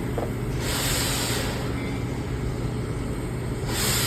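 Oxy-acetylene torch hissing steadily over a low rumble. A sharper, higher hiss of gas rushing out comes on briefly about half a second in and again near the end.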